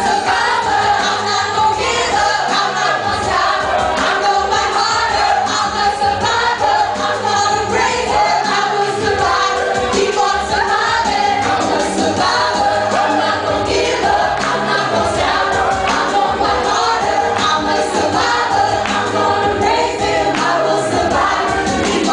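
A Christian song performed live: several vocalists singing into hand-held microphones over a backing track whose bass line repeats about every six seconds.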